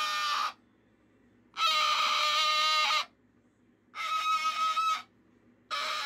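Moluccan cockatoo screeching its imitation of a dial-up modem: harsh hissing bursts over a steady high tone. The bursts last about a second each, four of them with short silent gaps between.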